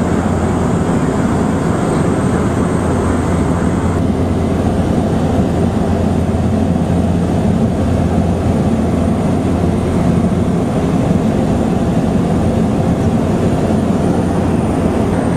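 Steady, loud drone of a single-engine Cessna light aircraft's piston engine and propeller, heard from inside the cabin in level cruise, with a constant low hum underneath.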